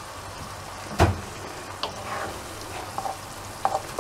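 Diced bell peppers frying in olive oil with onion and garlic: a steady sizzle, stirred with a wooden spoon that knocks sharply against the pan about a second in and clicks lightly a few more times.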